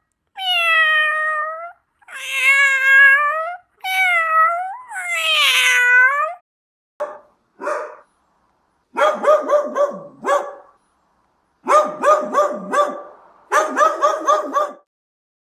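A cat meowing in four long, drawn-out calls, then a small dog yapping in three quick runs of short barks.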